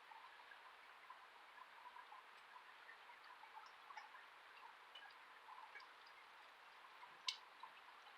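Near silence: faint outdoor ambience with scattered small ticks, and one sharp click about seven seconds in.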